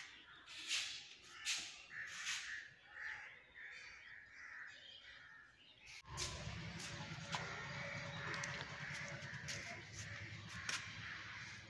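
Crows cawing, a string of short calls. About six seconds in, a steady low rushing noise comes in and stays.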